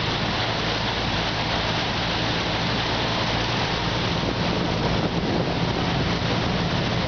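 A bus driving through floodwater: water rushing and churning along the side of the bus over the steady hum of its engine.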